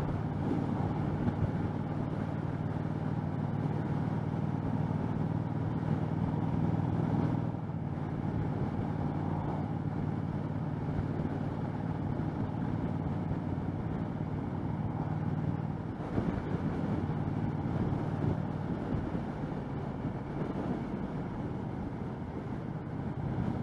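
A 2013 Triumph America's 865 cc parallel-twin engine running at steady road speed, mixed with wind noise on a helmet-mounted microphone. The engine note changes about a third of the way in and again past the halfway mark.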